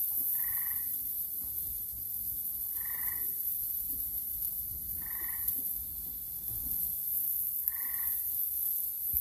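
A frog calling four times, short calls about every two and a half seconds, over a steady high-pitched hiss.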